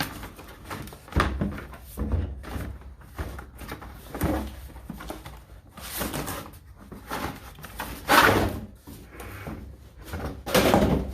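Tool packaging being opened and handled by hand: irregular rustling, scraping and short knocks, with louder handling noise about eight seconds in and near the end.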